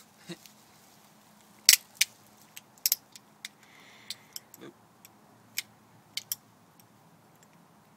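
Handmade Filipino balisong (butterfly knife) being flipped: sharp metal clicks and clacks of the handles and latch opening and closing, irregular, the loudest about two seconds in and smaller clicks scattered throughout.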